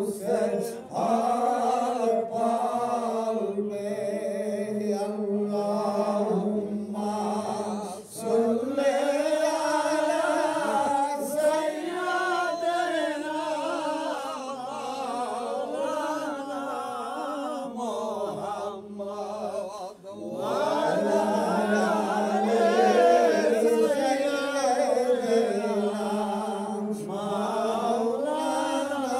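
A man chanting a long, melodic Sufi devotional invocation over a steady low drone, pausing briefly twice.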